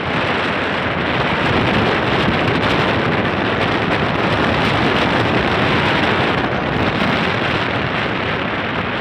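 Steady, loud wind rush over the microphone of a moving motorcycle.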